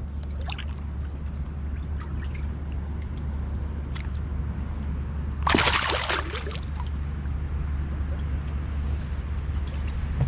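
A short splash of water about halfway through, over a steady low rumble and a few faint clicks.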